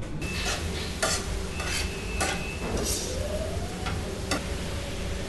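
Food sizzling as it browns in a pan, stirred with a utensil that scrapes against the pan several times.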